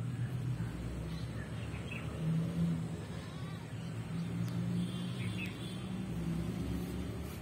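A steady low drone with a few short, high bird chirps about a second in, two seconds in and again around five seconds.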